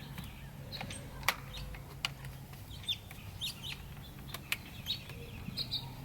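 Scattered light clicks and taps of trim pieces being handled and pressed onto a steering wheel, with several short high bird chirps or clucks in the background.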